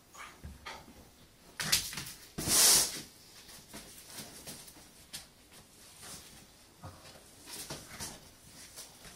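Springer spaniel puppy scuffling with a stuffed toy: scattered soft knocks and rustles, with a few sharp knocks and then a short, loud rush of noise about two and a half seconds in.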